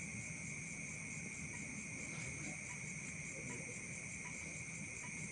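Insects trilling steadily in the background: a continuous high-pitched sound over a faint low hum.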